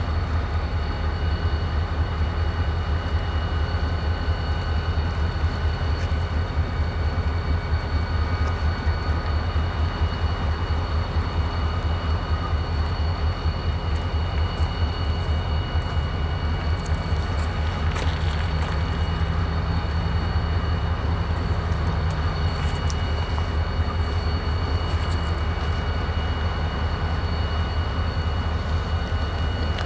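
Diesel-electric freight locomotives standing at idle: a steady low rumble with several steady high whining tones over it, and wind buffeting the microphone.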